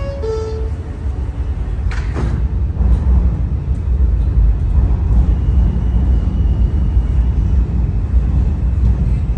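New York City subway train running with a loud, steady low rumble that builds a little after a few seconds. A two-note falling chime sounds at the very start, and a brief falling squeal comes about two seconds in.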